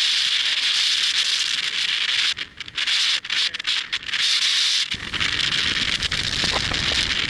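Loud steady hissing noise on a handheld camera's microphone that drops out briefly a few times, with a low rumble joining about five seconds in.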